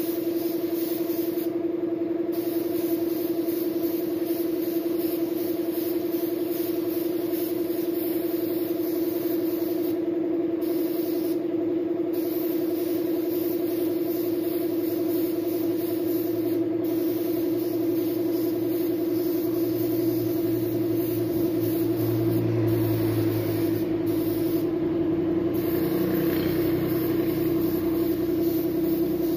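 Gravity-feed spray gun hissing as it sprays paint, the hiss stopping briefly a few times, over the steady hum of the air compressor feeding it.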